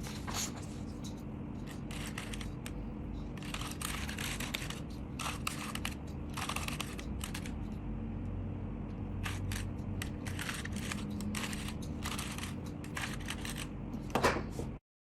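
Plastic Rubik's cube being twisted layer by layer: irregular runs of short clicking and rattling turns over a steady low hum.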